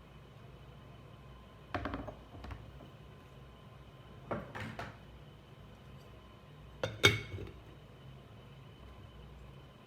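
Cutlery clinking against a dish in three short clusters of clicks, about two, four and a half and seven seconds in; the last is the loudest.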